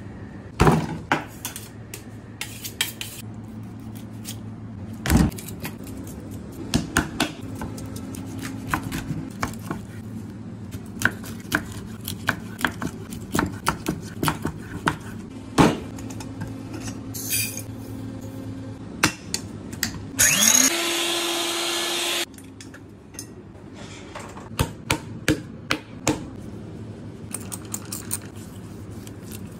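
Knife blade chopping through fish and striking a wooden cutting board, a long run of sharp knocks at irregular intervals, as a large fish is cut into steaks. About two-thirds of the way through, a small electric motor spins up with a rising whine and runs loudly for about two seconds, then stops. A steady low kitchen hum runs underneath.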